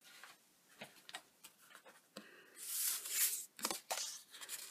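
Die-cut cardstock being handled on a craft mat: a few faint clicks, then a short papery rustle about two and a half seconds in as a card template is picked up and slid across the mat, followed by light taps and ticks as it is set down and smoothed by hand.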